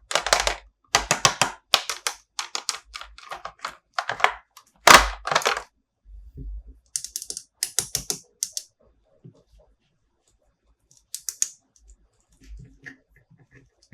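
Toy packaging and figures being handled: rapid runs of sharp clicks and crinkles for the first six seconds or so, then thinner clusters of high clicks and a few scattered taps.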